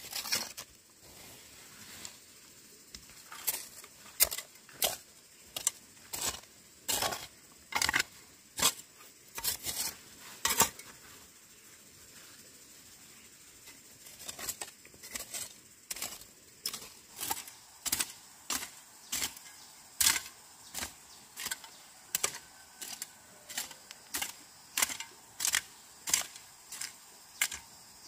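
A steady series of short, sharp clicks or strikes, about one and a half a second, pausing for a few seconds partway through and then carrying on at the same pace.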